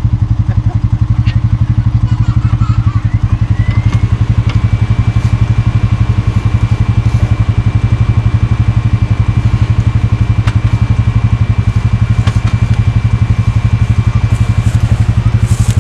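Engine running steadily at close range, a loud, rapid low throb that doesn't change. A faint high steady tone comes in about four seconds in with a short upward glide and fades out near the end.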